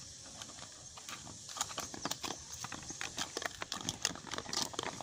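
A dog licking out a plastic food bowl: quick, irregular wet clicks and taps of its tongue against the plastic.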